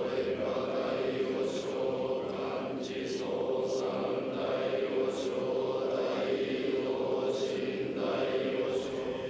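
A large group of Buddhist monks chanting a sutra in unison on a steady monotone, with sharp hissing consonants at intervals.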